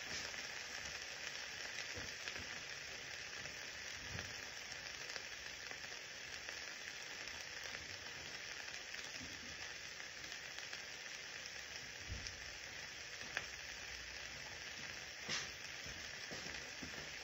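Meat frying in a stainless steel pan: a steady sizzle with scattered crackling pops, a few of them louder in the last few seconds.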